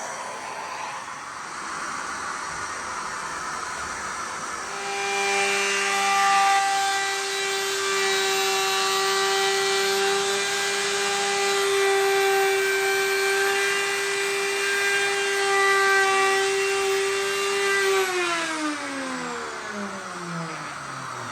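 Electric router running at a steady high whine while cutting a laminate worktop joint. After about 13 seconds it is switched off and winds down, its whine falling steadily in pitch.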